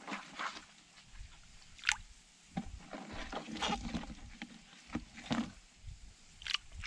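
Light splashes and sloshing of water in short, irregular bursts. Hands and small fish are moving in a plastic bucket, and fish are being let go into shallow pond water.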